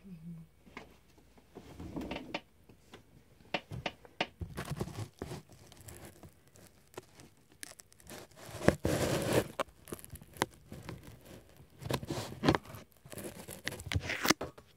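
Handling noise: irregular rustling, scraping and sharp clicks, with the loudest stretch of scraping about nine seconds in, stopping just before the end.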